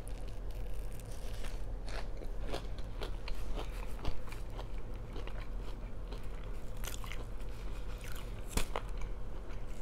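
Close-up eating sounds: a person biting into and chewing crunchy food, with many short, crisp crunches spread across the stretch.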